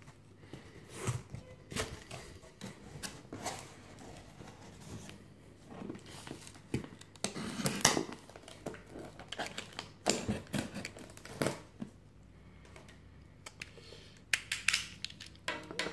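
Cardboard box being unpacked by hand: flaps scraping as they are folded back, a utility knife slicing cardboard and a sheet of paper rustling, in irregular short scrapes and rustles. The loudest come about halfway through.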